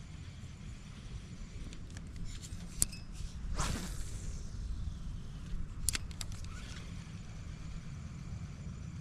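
Wind rumbling on the microphone, with a few sharp clicks and a short whoosh about three and a half seconds in.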